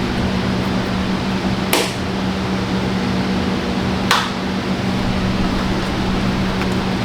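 A steady mechanical hum with two short, sharp clicks, about two seconds apart, typical of the plastic parts of an engine air box being handled during a filter change.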